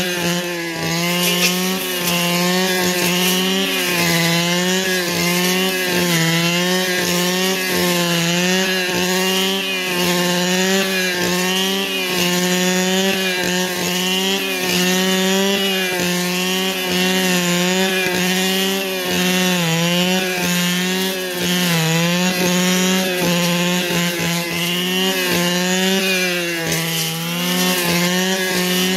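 Small handheld two-stroke engine running at high revs, its pitch dipping and recovering every second or two as it takes and sheds load.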